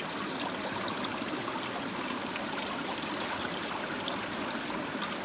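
Creek water flowing with a steady rush, with a few faint light ticks over it.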